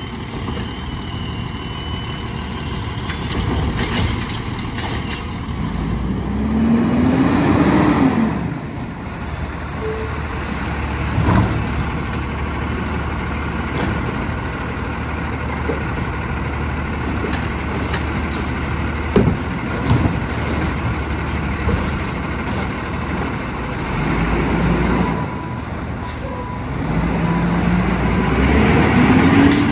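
Autocar ACX garbage truck with a Heil Rapid Rail automated side-loader working a pickup: the engine runs steadily and twice revs up and falls back as the arm's hydraulics lift a cart. Between the revs come a few sharp metal knocks from the cart and arm, and a short hiss of air.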